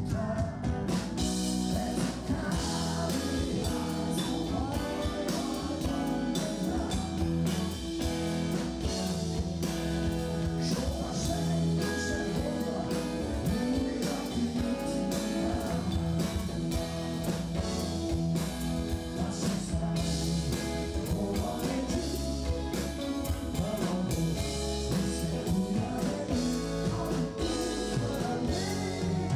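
Live rock band playing: a male lead singer with electric guitar and drums, a steady full-band mix throughout.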